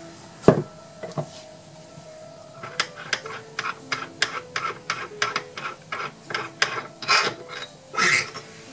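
A single sharp tap of a plastic hammer on the drawbar bolt about half a second in, knocking the ER32 collet chuck's Morse taper loose from the lathe spindle, with a lighter knock just after. Then a run of light metal clicks and rubbing, about three a second, as the loosened chuck and drawbar are turned and worked free by hand.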